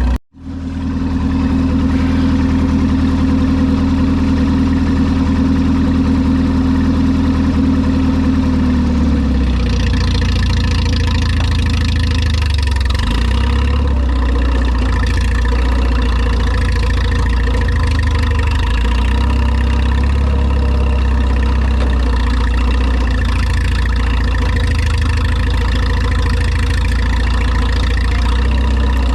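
Tractor engine running steadily at idle. A strong hum that sits over the engine fades out about nine seconds in, and the low engine rumble carries on.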